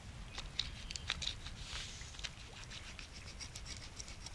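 Flint blade scraping across antler to score it: faint, short, scratchy strokes, with one longer scrape about a second and a half in.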